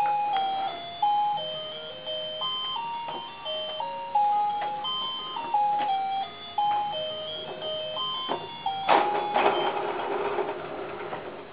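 A baby's push-along activity walker toy playing a simple electronic tune through its small speaker, one beeping note at a time, with a few sharp clicks. About nine seconds in, a louder, noisier burst of sound breaks in for a second or two.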